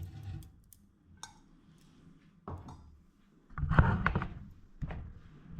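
Kitchen handling sounds around an air fryer basket: a few faint clicks, then a loud thud with rattling about three and a half seconds in and a smaller knock near the end.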